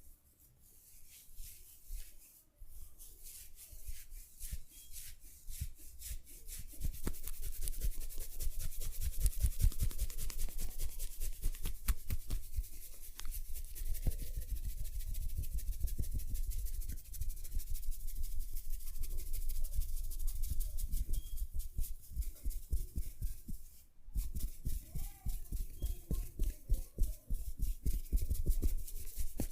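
Hands rubbing briskly over skin in a massage: a rapid, continuous run of friction strokes that grows louder and denser about seven seconds in, with a brief break near the end.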